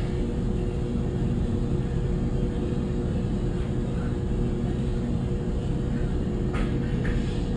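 A steady mechanical hum with a low rumble and two constant tones, with a short click at the start and another about six and a half seconds in.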